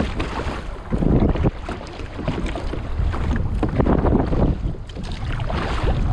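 Water splashing and lapping around a sea kayak in swells every second or two, over a low rumble of wind buffeting the microphone.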